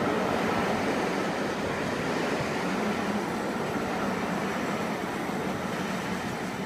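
A train's wheels running on the track with a steady noise that slowly fades as the train moves away.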